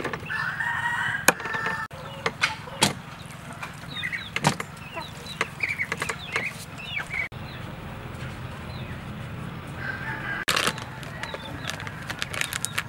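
Yard chickens: a rooster crows near the start and again around ten seconds in, with short clucks and cheeps in between. Several sharp knocks of a cleaver chopping frogs on a wooden block come in the first few seconds.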